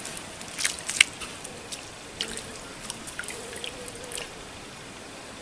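Small splashes and drips of shallow water with scattered light clicks, from a person wading barefoot through flooded leaf litter. The sharpest click comes about a second in.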